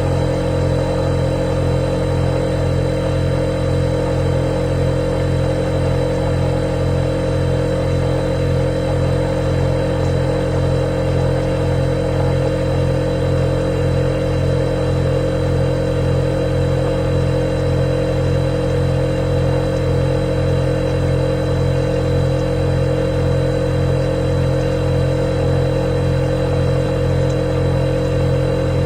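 Refrigerator running with a steady, unchanging mechanical hum: a low drone with a pitched tone in the middle and a faint high whine over it.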